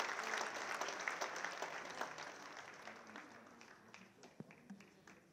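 Audience applause dying away: dense clapping thins out after about two seconds, leaving a few scattered single claps near the end.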